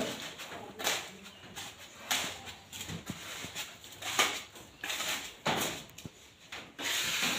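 Wet cement screed being scraped and spread across a floor with a hand tool, in irregular scraping strokes about once a second, the longest and loudest near the end.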